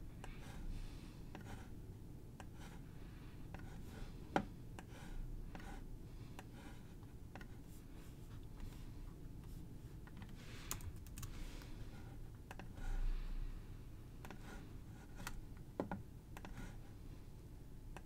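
Scattered, irregular clicks and taps of a computer mouse and keyboard at a desk, with a sharper click about four seconds in, a quick run of clicks around eleven seconds and a dull bump around thirteen seconds.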